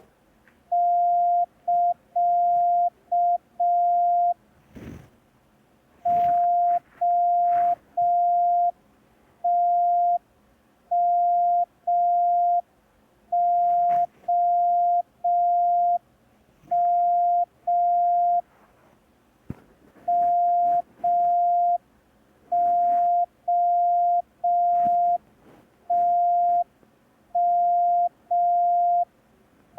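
Morse code practice tones: a single steady mid-pitched beep keyed on and off at slow speed in dashes and dots. It opens with the CT start signal (dash-dot-dash-dot-dash), then sends groups of the letters T, M and O, all dashes, for copying by ear.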